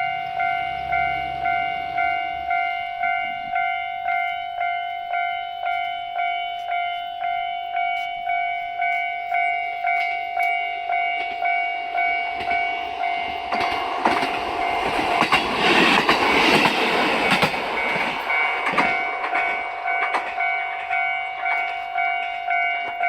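Japanese railway level-crossing warning bell ringing about twice a second. About halfway through, a train passes over the crossing, its rushing, clattering noise building, peaking and easing off over several seconds while the bell keeps ringing.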